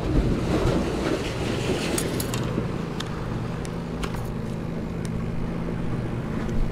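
Steady low rumble of road traffic, with a few light clicks scattered through it.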